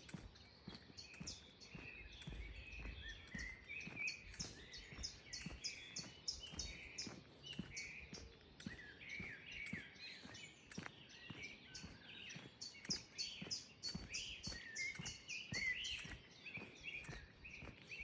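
Several songbirds chirping and singing together, with runs of quick, high repeated notes, over frequent soft low thuds that fit footsteps on a path.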